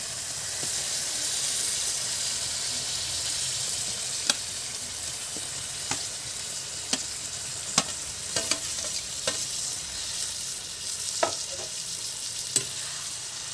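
Chicken pieces sizzling in hot masala and oil in a steel kadai, while a steel ladle scrapes and stirs. The ladle gives a handful of sharp, irregular knocks against the steel pan and bowl in the second half.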